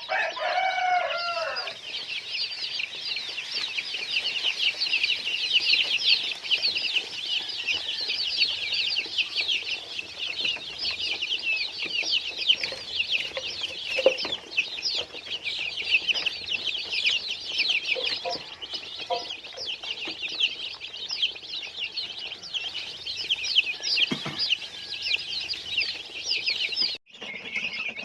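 Many chicks peeping all at once in a dense, continuous high-pitched chatter. A chicken's lower call sounds in the first second or so.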